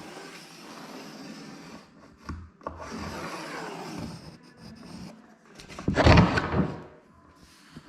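Pencil drawn along a straight edge to mark a cut line on a board, a light scratching and rubbing, with a few small knocks as the straight edge is handled. About six seconds in comes a louder, short scraping knock, the loudest sound.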